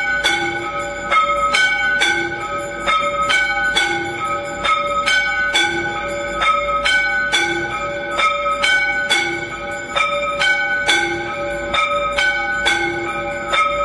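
Temple bells rung continuously for aarti, struck in a steady rhythm of a few strokes a second, with more than one bell pitch ringing together.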